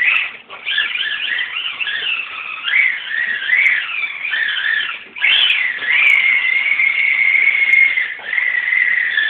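Electric motor and drivetrain of a Tamiya TT-01 radio-controlled car whining as it drives, the pitch rising and falling with the throttle. About five seconds in it cuts out for a moment, then comes back and holds one pitch for a couple of seconds.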